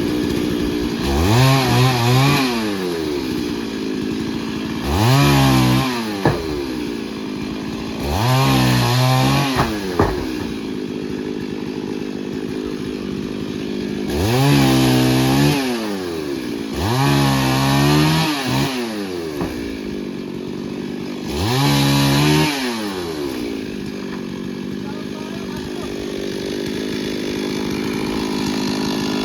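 Two-stroke chainsaw idling, revved up six times in short bursts while trimming tree branches, its pitch rising and falling back to idle after each burst. It idles steadily for the last several seconds.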